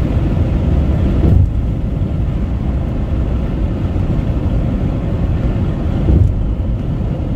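Car travelling at highway speed: a steady, loud low rumble of road and wind noise, with a brief swell about six seconds in.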